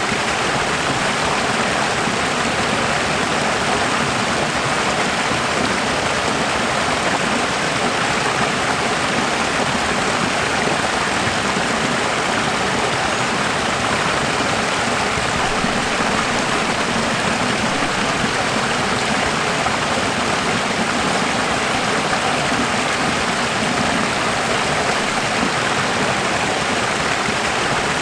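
Running water: a steady, even rush of flowing water with no breaks or changes.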